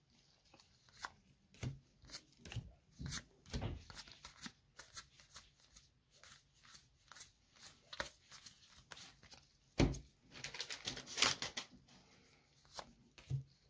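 Magic: The Gathering trading cards and booster packs being handled and flipped through: an irregular run of soft clicks and rustles, with a couple of louder knocks, one a little before halfway and one about ten seconds in.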